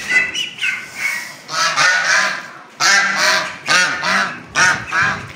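Domestic geese honking, a run of about eight loud calls in quick succession starting about a second and a half in.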